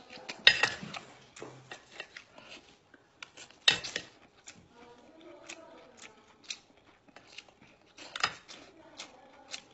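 Close eating sounds of crab legs: a run of small clicks and cracks of shell, with three sharper cracks about half a second in, near four seconds and about eight seconds in, as the meat is bitten and pulled from the shell pieces.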